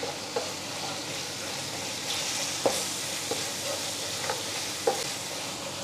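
Onion-tomato masala sizzling in hot oil in a stainless steel pan while a wooden spoon stirs pickle into it, with a handful of short knocks and scrapes of the spoon against the pan.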